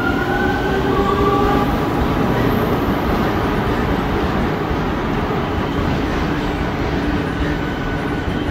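Electric metro train pulling out of an underground station. Its traction motors whine, rising in pitch over the first second or so as it gathers speed. Beneath that runs a steady rumble of wheels on rail, which eases slightly near the end.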